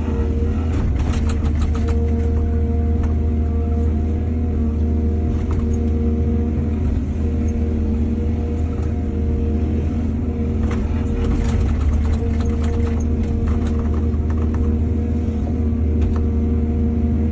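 Excavator engine running steadily with a deep drone. Clusters of short knocks and scrapes come about a second in and again through the second half.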